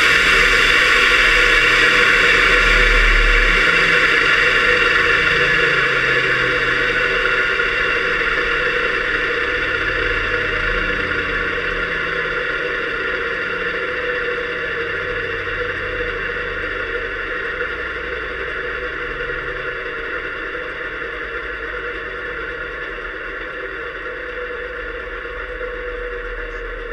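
Fairchild J44 turbojet engine running, a muffled whine with gear and shaft hum carried through the engine's mounting frame. The sound slowly fades, its pitch easing down slightly over the stretch.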